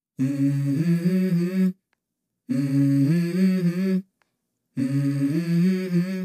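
Background music: a low, wordless hummed melody in three short phrases, each stepping between a few notes and each broken off by about a second of silence.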